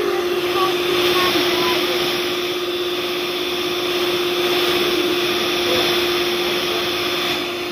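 A small electric motor appliance running steadily, a constant whine over an even rushing hiss.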